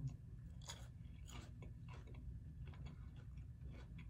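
Chewing a bite of fried vegetable spring roll: an irregular run of soft crunches and mouth clicks.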